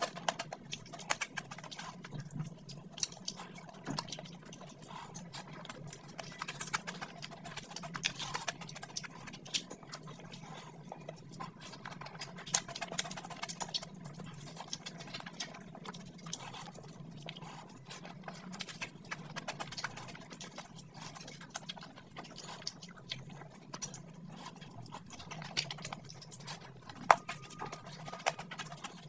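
Close-miked mouth sounds of eating rice and fried fish: chewing, lip smacks and wet clicks, irregular and often several a second.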